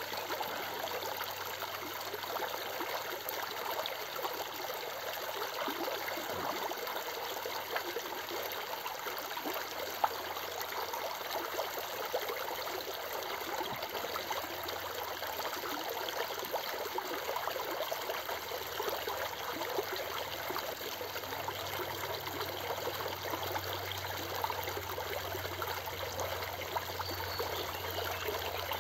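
Shallow creek water running and splashing over rocks in a small riffle: a steady rush with fine, constant splashing.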